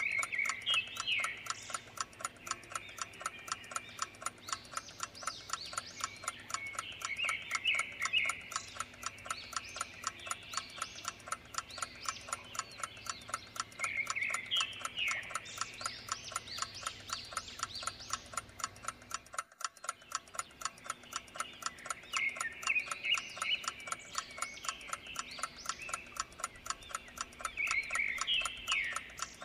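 Clock ticking steadily and evenly as a timer soundtrack. Chirping animal calls come every several seconds, and the whole sound drops out for a moment about twenty seconds in.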